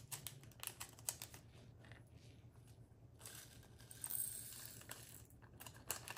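Faint, irregular clicking and crinkling: a small plastic bag of resin diamond-painting drills being handled and emptied over a plastic tray, the tiny drills ticking against the plastic.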